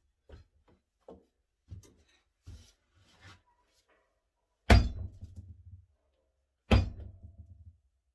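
A few light knocks and clicks, then two loud thumps about two seconds apart, each dying away over about a second.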